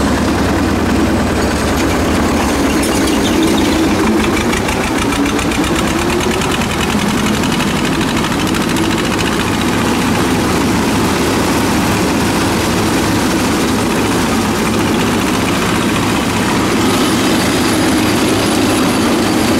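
Belarus 250 (T-25) tractor's air-cooled two-cylinder diesel running steadily and loudly with the throttle opened up for mowing, driving a PTO rotary mower through tall grass. Its exhaust note is harsh and offensive.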